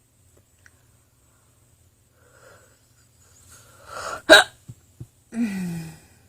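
A woman's hiccup: one sharp, loud hiccup about four seconds in, after soft breathing, followed by two small clicks and a short voiced sound that falls in pitch.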